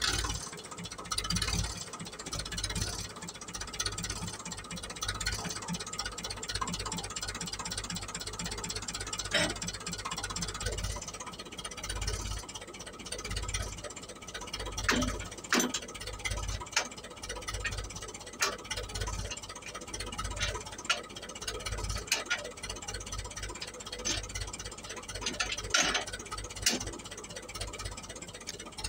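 Old tractor's diesel engine idling unevenly, with sharp metal clanks as the trailer drawbar and hitch are handled beside it.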